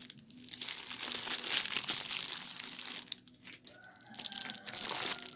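Clear plastic packaging crinkling and rustling as it is handled and a plastic-wrapped crochet hook set is pulled out of its outer bag. There are two stretches of crinkling with a short pause about three seconds in.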